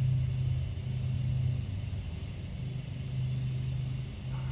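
A steady low hum, like a motor or engine running, over a faint background hiss.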